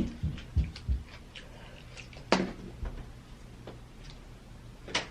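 Mukbang eating and food-handling noises: a few soft thumps in the first second, then scattered short clicks, with a sharper click about two and a half seconds in.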